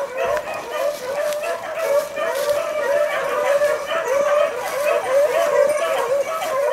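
Several beagles baying together on a rabbit's trail: a steady run of short, overlapping hound calls.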